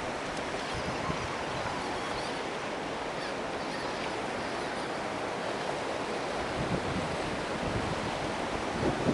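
A steady rushing noise, with a few faint knocks near the end.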